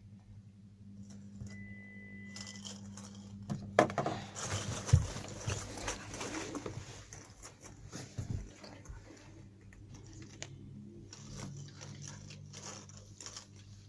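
A hearing-test tone, one steady high pitch held for about a second, plays over a low steady hum. Then comes a stretch of rustling and clicking handling noise with two sharp thumps, the loudest sounds, a few seconds in.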